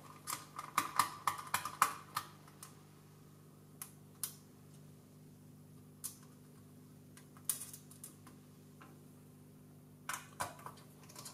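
Light clicks and taps of a small screwdriver working the heatsink screws out of a graphics card's circuit board, with the screws and card being handled. The clicks come in a quick cluster at the start, fall to a few scattered ticks, and pick up again near the end.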